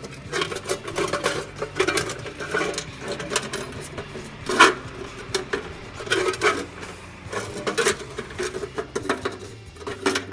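Copper tubing coil knocking and scraping against the inside of a thin tin paint can as it is worked into place, in an irregular run of clanks and rattles.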